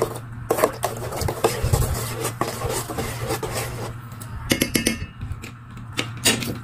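Metal spoon stirring a thin sauce in a rice cooker's inner pot, clinking and scraping against the pot's sides and bottom with a wet sloshing, and a few sharper clinks near the end.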